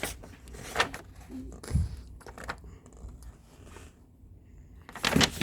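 A few light clicks and taps of things being handled, with one duller thump about two seconds in, then a quieter stretch.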